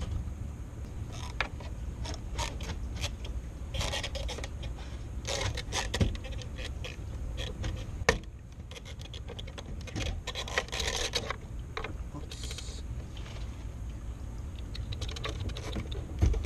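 Metal parts and hand tools being handled: irregular clicks, rattles and scrapes, over a steady low rumble.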